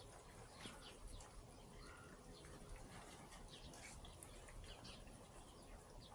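Near silence, with faint, scattered short bird chirps.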